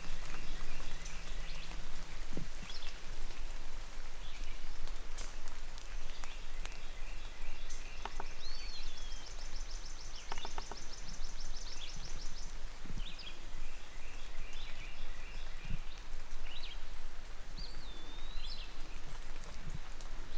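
Wet woodland ambience: a steady hiss with scattered drips of light rain, and songbirds singing over it, with short repeated chirping phrases and a high trill about eight seconds in.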